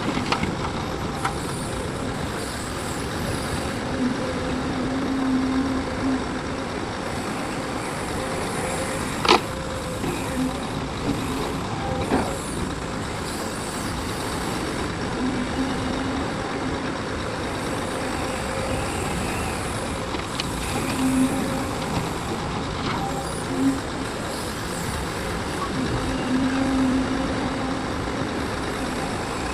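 Heavy diesel machinery running steadily, a low engine note swelling and easing several times, with a few sharp knocks, the loudest about nine seconds in.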